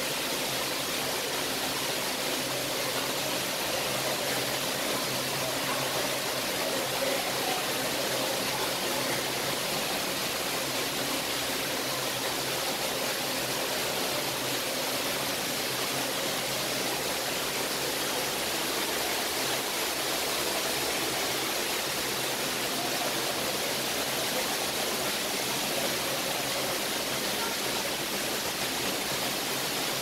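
Steady rushing background noise of a public aquarium viewing hall, even and unbroken, with a faint low hum underneath.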